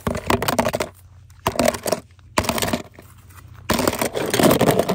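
Small toy cars clattering and clinking as they are dropped and jostled into a plastic tub, in four short bursts of rattling; the last, near the end, is the longest and loudest.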